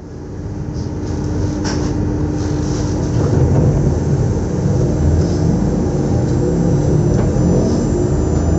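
SNCF Z2N double-deck electric multiple unit Z 20895 standing at the platform, giving off a steady electrical hum with one held tone and a few light clicks. The sound fades in over the first couple of seconds, and a faint whine begins to rise near the end.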